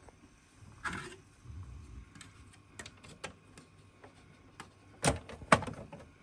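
Plastic clicks and knocks of an ink cartridge and its bay being handled at a Ricoh printer: a short rustle about a second in, a scatter of small clicks, then two louder sharp clicks near the end.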